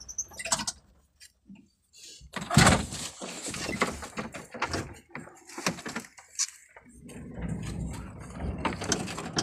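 A truck's cab door being opened and someone climbing out: a sharp clunk about two and a half seconds in, then a run of irregular knocks and rattles.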